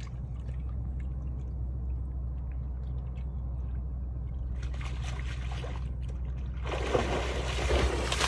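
Borzoi wading and then running through shallow water: a short patch of splashing about five seconds in, then from about seven seconds loud, continuous splashing as it bounds through the shallows, over a steady low rumble.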